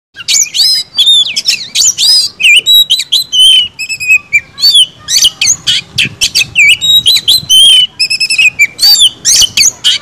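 Oriental magpie-robin (kacer) singing a fast, varied song of whistled phrases, slurred notes and trills, with only short gaps between them.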